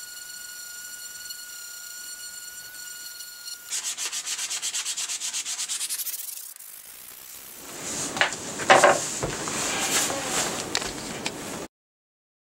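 Electric detail sander running on butternut wood with a steady high whine, which turns to a pulsing sound about four seconds in as the sander works the piece. It then gives way to rougher, uneven scraping with a few louder knocks and stops abruptly near the end.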